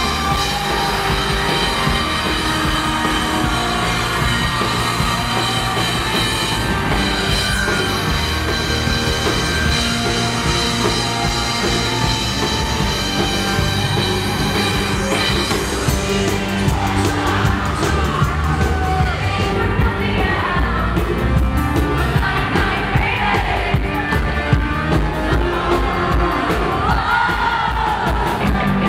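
A rock band playing live through a concert PA: electric guitar, keyboards and drums, with a woman singing lead.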